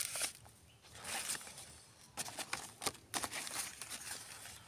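Dry grass and leaves rustling and crackling in several short spells, with light clicks among them.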